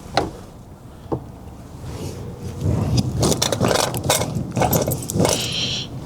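Metal hand tools clinking and rattling as a socket wrench works on a small 7 mm bolt: a couple of sharp clicks, then a busier run of irregular clinks from about halfway through.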